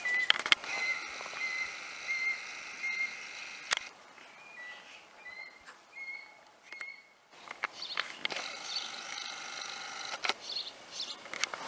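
A baby beaver whining in short, high-pitched cries repeated every half second or so, with sharp clicks and splashes of water from its paddling.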